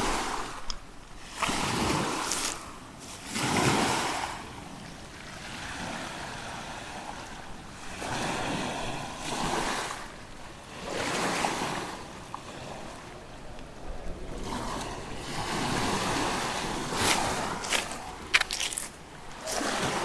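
Sea waves breaking and washing onto the shore, swelling and fading every few seconds, with a few sharp clicks near the end.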